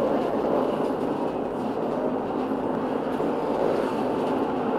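Munich R 2.2 low-floor tram running along the track at speed: a steady noise of wheels on rails and running gear, even in level throughout.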